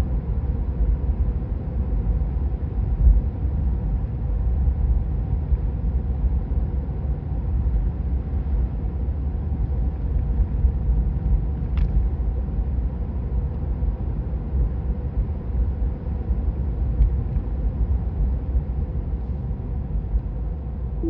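Steady low road and tyre rumble inside the cabin of a Tesla Model 3 Highland electric car cruising on a country road, on Michelin e-Primacy 235/45-R18 tyres, with a faint steady hum. A single sharp click sounds about halfway through.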